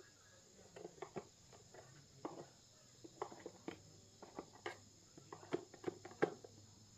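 An irregular series of light knocks and clicks, a few to the second, over a faint steady high-pitched background.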